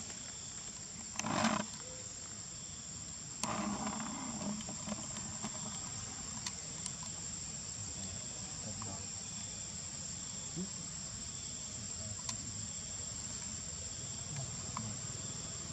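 Steady high-pitched drone of insects in the background, with two brief louder noises, about a second and a half and three and a half seconds in.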